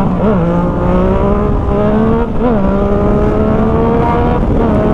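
Motorcycle engine with a Jeskap GP2 aftermarket exhaust, loud and under way. The note holds steady and slowly climbs, with two brief upward pitch flicks, one just after the start and one about two and a half seconds in.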